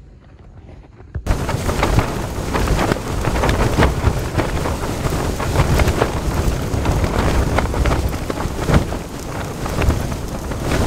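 Storm wind battering a tent, heard from inside: the tent fabric flaps loudly and unevenly with many sharp snaps, starting suddenly about a second in.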